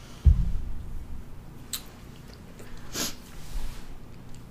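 A low thump about a quarter second in, then close-miked mouth sounds after a gulp of milk: swallowing and a couple of short lip-smacking clicks.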